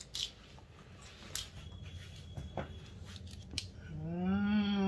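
Faint scattered clicks and taps, then near the end a person's long wordless vocal sound, rising in pitch and then held.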